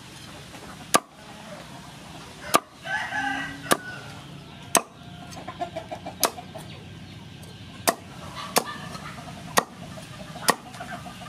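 A large kitchen knife chopping down through crispy fried pork belly onto a wooden cutting board: about nine sharp chops, roughly a second apart. A few short pitched calls sound in the background between the chops.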